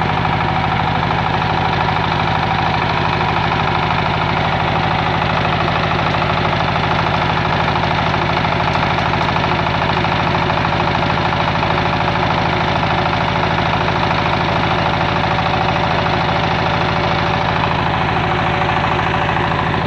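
Generator set's engine running steadily at an even, fast beat, loud and unchanging, while the set puts out about 220 volts.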